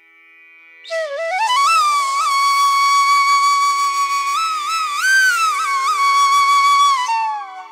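Background music: a solo flute melody with sliding, ornamented notes over a steady drone. It comes in about a second in and trails off with a falling note near the end.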